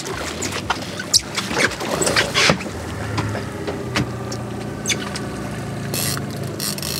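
A boat's outboard motor running steadily at idle, with water splashing and scattered clicks and knocks as a hooked coho salmon thrashes at the surface beside the boat. The biggest splash comes about two seconds in.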